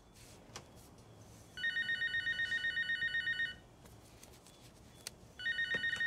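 Electronic telephone ringer trilling: two rings of about two seconds each, the second starting near the end, with quiet room tone between them.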